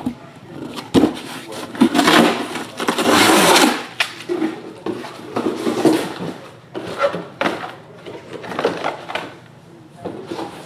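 Rustling and handling noises with a few sharp knocks about a second in, loudest between two and four seconds in.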